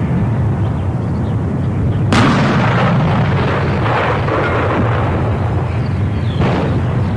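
Howitzer firing: a sharp blast about two seconds in, followed by a long rolling rumble that dies away slowly, over a steady low rumble. A smaller bang comes near the end.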